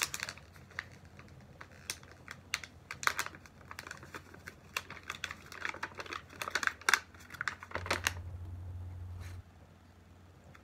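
Fingers picking at the closure of a small printed gift bag to open it, making irregular small clicks and crinkles.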